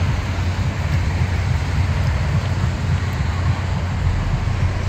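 Steady road traffic passing on a busy road, mixed with a low, buffeting rumble of wind on the microphone.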